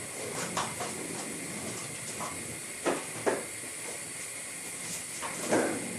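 Steady hiss as milk heats, with a few light knocks and clicks of kitchenware.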